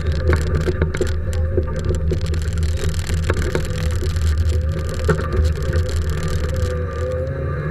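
Fiat rally car's engine running hard under load, heard from inside the stripped cabin as a steady drone, with scattered sharp clicks and knocks through the car.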